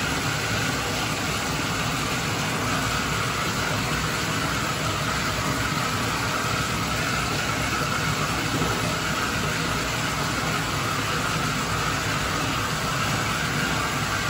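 Bathtub tap running into a tub already full of soapy water: a steady rushing of water.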